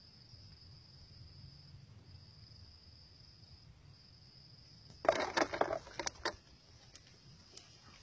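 Insects chirring steadily in a high, even buzz with short breaks. About five seconds in, a loud rattling flurry of quick sharp knocks lasts just over a second, then a few faint clicks.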